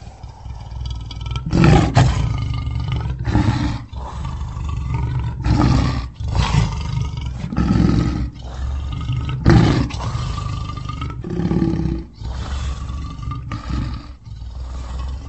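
Male lion roaring: a run of loud, deep calls repeating about once every second or so.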